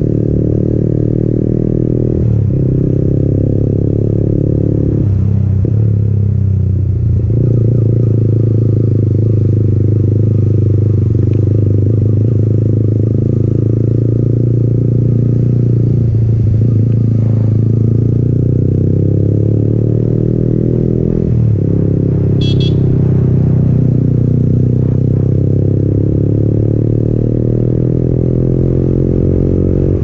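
Yamaha MT-15's single-cylinder engine running through an Akrapovic exhaust while riding. The exhaust note is steady, breaking and dipping briefly a few times before picking up again.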